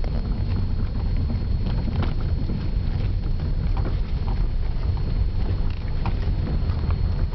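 Toyota Corolla driving, heard from inside the cabin: a steady low road and tyre rumble, with a few faint, light taps scattered through it.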